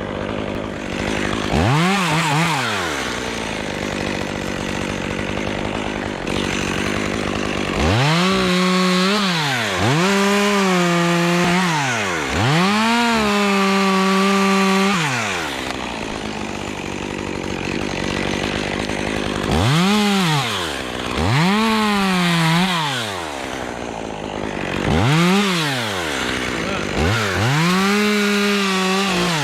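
Chainsaw cutting Leyland cypress limbs, revving up to full speed and dropping back about eight times, holding full revs for a second or two during several of the cuts.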